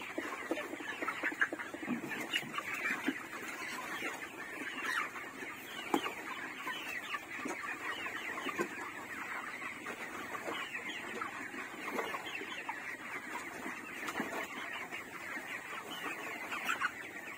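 A flock of 32-day-old broiler chickens keeps up a continuous, overlapping chatter of short clucks and chirps, with a few sharp knocks and scrapes from a rake working the litter.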